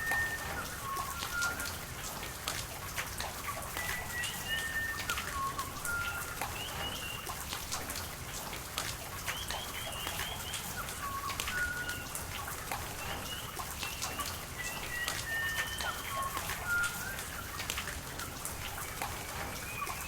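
Birds calling with short, repeated whistled chirps and little pitch glides, over a steady patter of rain with drops ticking.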